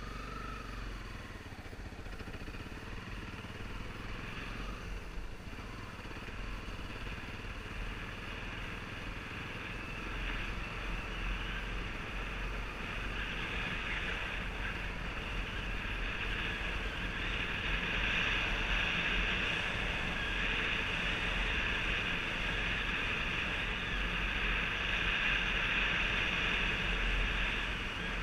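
Honda trail bike's engine running under way on a dirt track, with wind rushing over the helmet-mounted microphone. The engine and wind noise get louder about ten seconds in and again a little past halfway, as the bike picks up speed.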